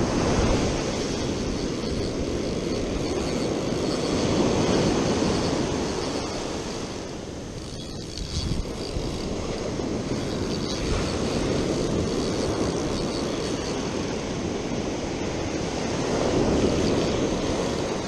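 Ocean surf on a sand beach: waves rushing and washing up the shore in a steady roar, swelling louder twice, about a third of the way in and again near the end.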